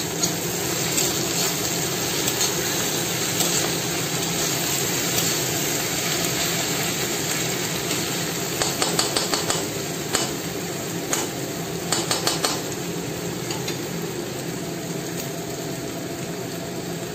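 Diced onion, carrot and tomato sizzling in oil in a black wok, with a spatula stirring and scraping against the pan; the scraping comes in short clusters of clicks about halfway through.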